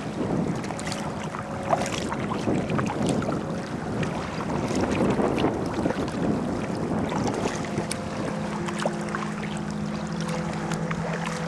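Water lapping and splashing around a kayak, with scattered small splashes from the paddle and wind buffeting the microphone. A steady low tone comes in over the last few seconds.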